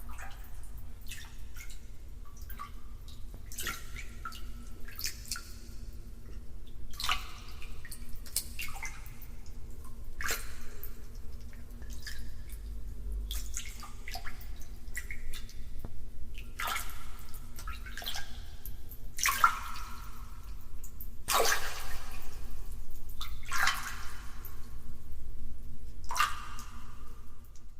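Public bathhouse ambience: water splashing and pouring at irregular intervals, each splash ringing briefly in a tiled room, over a steady low hum. The splashes get louder in the second half.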